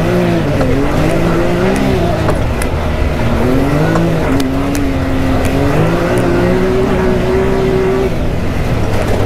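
Can-Am Maverick X3's turbocharged three-cylinder engine heard from inside the cab under way, engine speed rising and falling with the throttle and holding steady for a couple of seconds before dropping near the end. A few sharp ticks sound over it.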